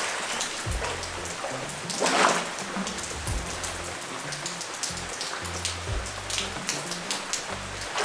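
Steady rain falling on paving and pool water, heard as a hiss with many small drop ticks, over background music with a low, stepping bass line. There is a brief louder swell of noise about two seconds in.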